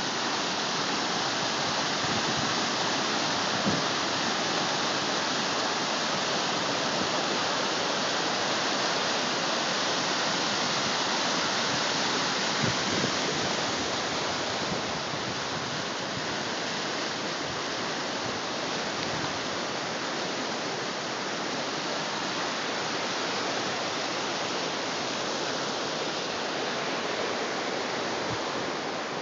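Mountain river rushing steadily over its bed, a constant full water noise.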